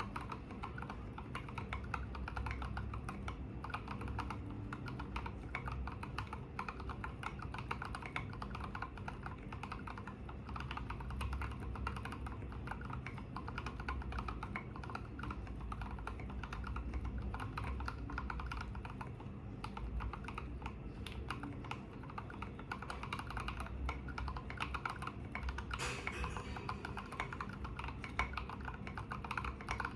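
Continuous typing on an IDOBAO ID80 mechanical keyboard with lubed Durock Koala tactile switches and SA-profile keycaps. The keys make a steady stream of deep, thocky keystrokes.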